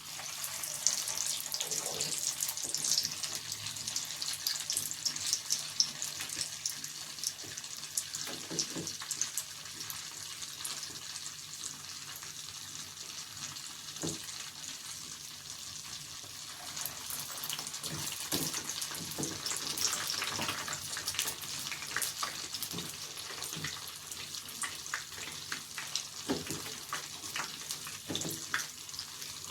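Falafel deep-frying in hot oil: a steady sizzle with many small sharp crackles.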